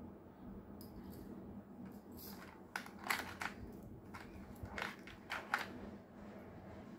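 Jewellery being handled out of sight: a handful of short crinkles and clicks as earrings are put away and the next pair is taken out, the loudest about three seconds in and near the end.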